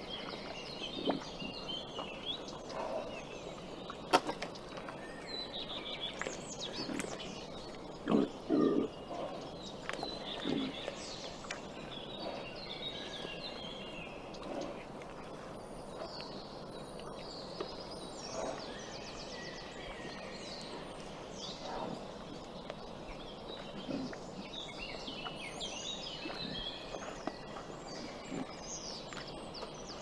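Wild boar eating and chewing, in short low sounds every few seconds, the loudest pair about eight seconds in, with one sharp click earlier. Birds chirp throughout.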